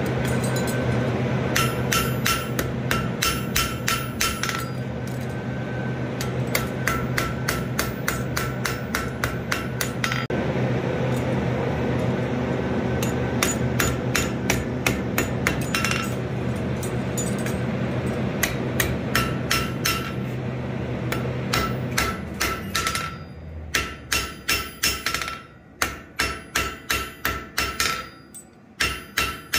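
Hand hammer striking hot steel bar on an anvil in runs of quick blows, the anvil ringing with each strike. A steady low hum runs under the first part and stops about three-quarters of the way through; the strikes then continue at about three a second.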